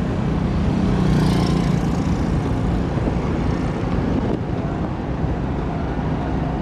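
A car's engine and road noise heard from inside the moving car, a steady low hum that swells briefly about a second in.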